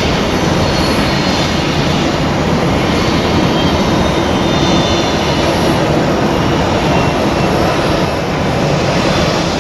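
Jet airliner engines, a loud, steady rush of engine noise with no rise or fall.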